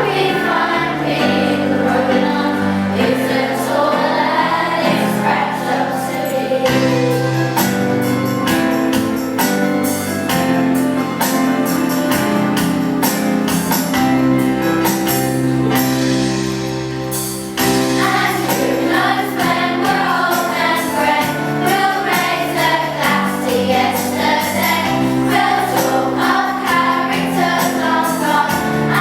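A choir singing a song over backing music with a steady percussive beat.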